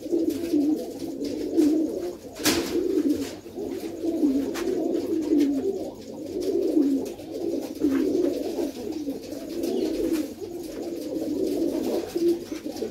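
A loft full of domestic pigeons cooing, many low coos overlapping into a continuous warble. A single sharp click comes about two and a half seconds in.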